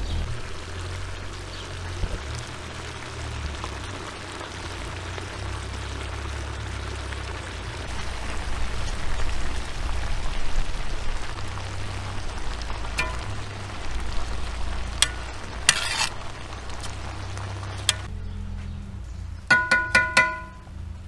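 Rice going into a kazan of hot fat and meat, the contents sizzling steadily as a metal skimmer scrapes through it, with a few sharp clicks. Near the end the skimmer is knocked four times in quick succession on the kazan's rim, ringing.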